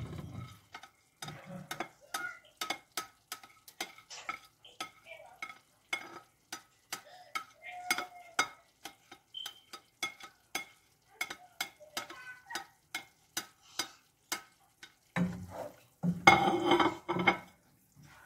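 Spatula scraping and tapping against a plate, short clicks two or three times a second, as chopped carrots and bell pepper are pushed off it into a pot of meat sauce. Near the end comes a louder clatter of the spatula stirring in the pot.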